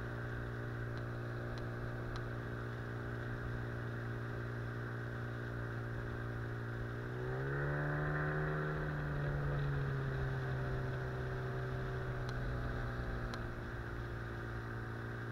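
Small outboard motor driving a boat under way, running steadily. About seven seconds in it speeds up with a rising pitch, then eases back a little a few seconds later.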